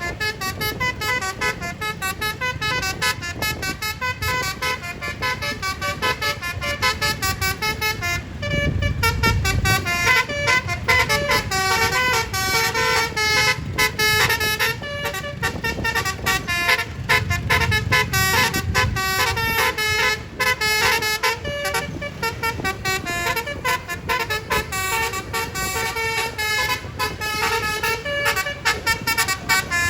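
Basuri telolet horn on a Tunggal Jaya bus playing a long, fast melody of short stepping notes. A low rumble swells under it about eight seconds in and again around seventeen seconds.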